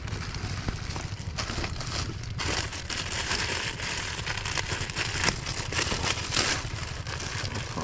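Continuous crinkling, crackling rustle with many small clicks, over an uneven low rumble.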